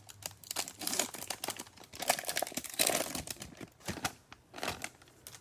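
Trading-card pack wrappers crinkling and tearing as a pack is opened and the cards handled: irregular crackling rustles and clicks that thin out near the end.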